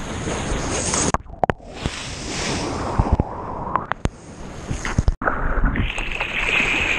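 Seawater splashing and rushing around an action camera held at the surface while a surfer paddles through whitewater. The noise breaks off suddenly about a second in and again near five seconds.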